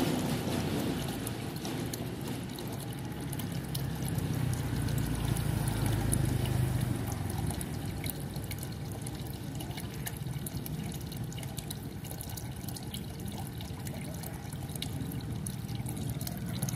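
Water from a pond pump's outflow falling into a small fish pond, trickling and splashing steadily, with many small splashes and clicks at the water's surface.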